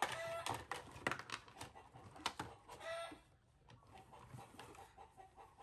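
Plastic toys clicking and knocking on a wooden tabletop as they are handled, with two short, clear animal calls, one at the start and one about three seconds in.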